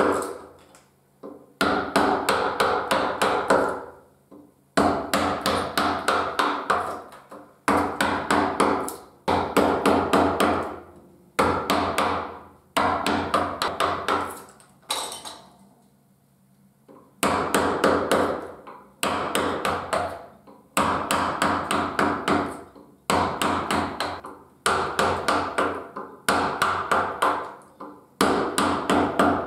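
Round wooden carver's mallet striking a carving gouge into cherry wood: runs of quick, light knocks, about four or five a second, broken by short pauses, with a longer lull around the middle.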